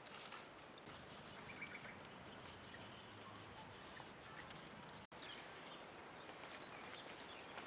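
Quiet rural outdoor ambience, with a bird giving a short high chirp four times about a second apart and faint light taps.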